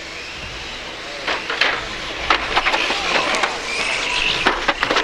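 Electric front-wheel-drive RC touring cars racing: a high-pitched motor whine rising and falling, with many sharp clacks from about a second in.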